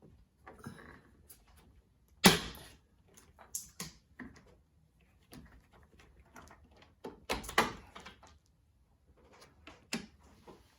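Plastic roof-rail cover being pried off a car roof: irregular clicks, knocks and snaps of its plastic clips being forced and broken. The loudest is a sharp snap about two seconds in, with another cluster of knocks around seven to eight seconds in.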